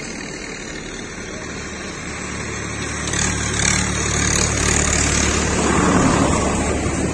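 A motor vehicle passing by on a nearby road: its engine hum and tyre noise grow louder from about two seconds in, peak near the end, then begin to fade.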